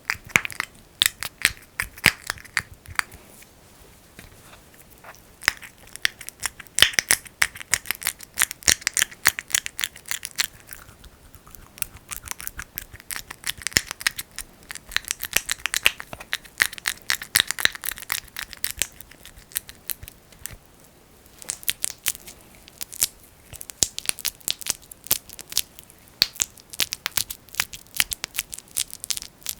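Fingers kneading and pressing thick Vaseline (petroleum jelly) right at the microphone, giving dense, rapid sticky crackles and clicks. The sound eases off briefly about four seconds in and again around twenty seconds.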